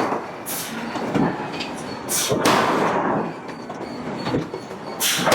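Hydraulic forging hammer striking hot steel billets: a series of heavy blows at uneven intervals, each followed by a hissing, ringing tail.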